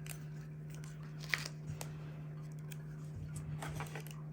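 Paper stickers being handled: a few small sharp clicks and soft paper rustling, over a steady low hum.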